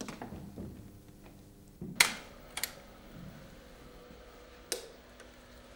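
Three sharp, short clicks: one about two seconds in, a lighter one just after, and another near the end, over a quiet background.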